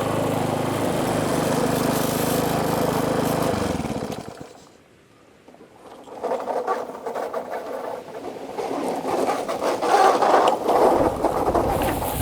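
Petrol lawnmower engine running steadily, then dying away about four seconds in. A brief lull follows, then irregular scraping and rustling.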